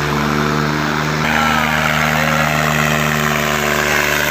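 A John Deere tractor's diesel engine running hard at steady high revs, its note shifting slightly about a second in. The black exhaust smoke and lifted front wheels show it under heavy throttle.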